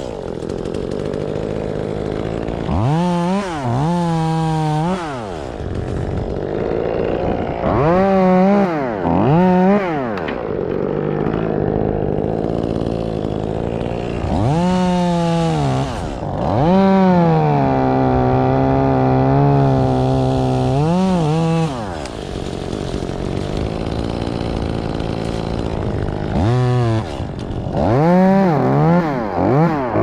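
Two-stroke chainsaw idling and revving up in repeated short bursts, held at high revs for about four seconds in the middle as it cuts through wood.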